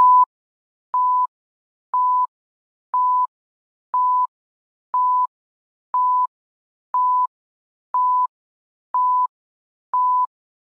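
Film-leader countdown beeps: a short, steady, single-pitched beep once every second, with silence between, eleven times, ticking off the numbers from ten down to zero.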